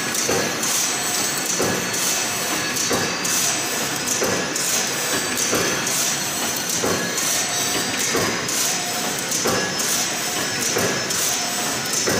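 Heavy PLC-controlled shuttleless rapier wire mesh loom running, each weaving cycle giving a regular knock about every three-quarters of a second over a steady mechanical clatter and a faint high whine.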